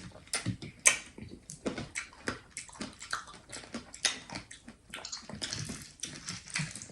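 People eating a bowl of mixed berries and pomegranate seeds in coconut water with ice: irregular chewing, sipping and small clicks and clinks, several a second.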